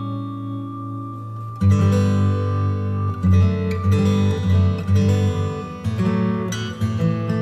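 Background music: acoustic guitar, a held chord ringing out and then picked notes and chords from about a second and a half in.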